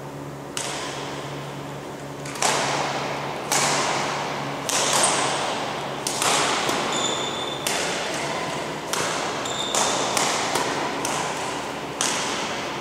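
Badminton rackets striking a shuttlecock back and forth in a rally, about a dozen sharp hits at uneven spacing, each ringing on in the large sports hall. A couple of brief high squeaks from shoes on the court floor come between them.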